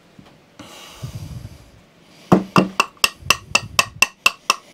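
Hammer tapping on the top of a Honda/Kaaz Lawnflight Pro mower's aluminium gearbox casing: sharp light knocks at about four a second, starting about halfway in. The gentle taps are working the two halves of the casing apart and breaking the seal between them.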